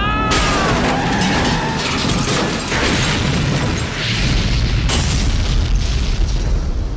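Action-film explosion effects as a car is blown up: a loud blast of noise sets in just after the start, a second explosion hits about five seconds in as the car is thrown into the air, with a deep rumble under it.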